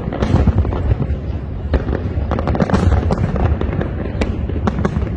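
Aerial firework shells bursting in quick succession: many sharp cracks over a continuous low rumble of booms.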